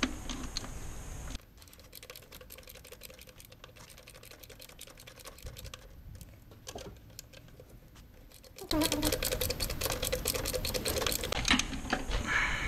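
Hand ratchet clicking in rapid strokes while tightening the ground wire bolt on the engine. The clicking drops to a quieter stretch after about a second and a half, then comes back louder near the end.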